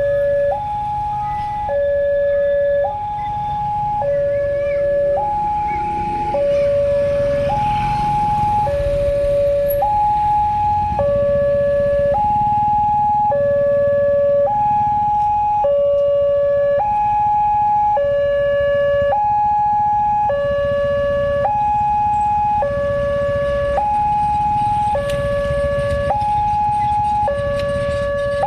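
Railway level-crossing warning siren, newly replaced, sounding a two-tone hi-lo alarm that alternates between a higher and a lower tone about once a second, over a steady low rumble.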